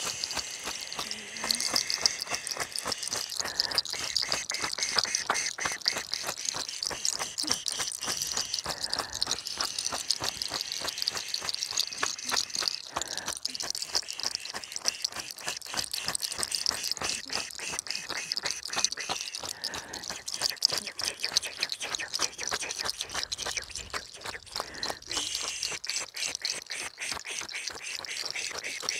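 Dense, irregular crackling and rustling of a bundle of fresh healing herbs, among them rue and laurel, as it is brushed and pressed over a person's head and hair in a spiritual cleansing.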